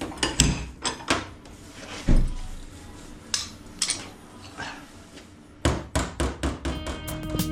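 Metal knocks and taps on a car body panel as a dent is worked out. The knocks are scattered at first, then about four quick taps a second come near the end.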